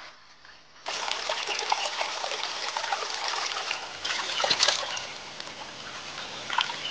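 A shallow stream's water running over rocks, starting about a second in, with hands splashing and sloshing in the water.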